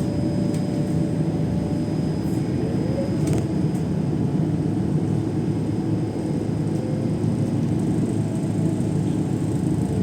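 Steady low rumble of a moving vehicle, with a faint whine that slides slowly in pitch.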